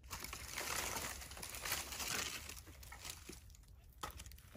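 Rustling and crackling as wood is put on a campfire, easing off after about three seconds, with a few short snaps near the end.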